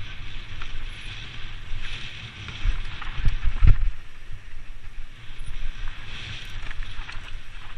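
Mountain bike descending a dirt forest trail at speed: tyres rolling on dirt and the bike rattling over the rough ground, with wind noise on the camera microphone. Heavy thumps a little over three seconds in as the bike hits bumps.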